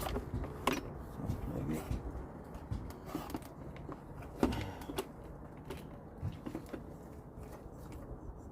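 Scattered light clicks and knocks of motorcycle headlight parts being handled during a repair, with faint voices behind.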